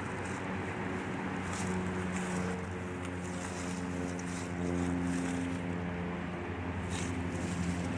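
A steady low engine drone, a motor running and holding several even tones without revving.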